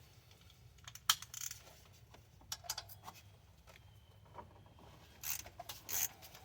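Metal sockets and hand tools clinking and rattling as they are handled, in a few scattered bursts. The sharpest clink comes about a second in and a busier cluster near the end.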